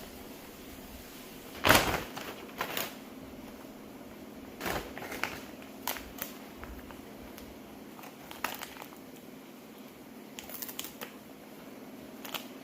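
Kitchen handling sounds: scattered knocks and clinks of utensils and dishes, the loudest a sharp knock about two seconds in, over a steady low hum.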